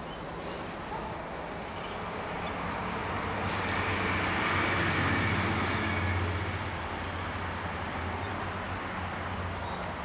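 A motor vehicle passing by, its rumble and tyre noise swelling to a peak about five seconds in and then fading.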